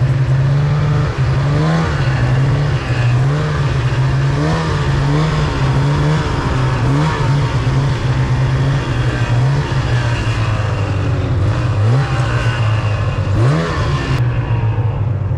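Snowmobile engine running as the sled is ridden through snow, its pitch rising and falling again and again with the throttle, with two quick revs up near the end.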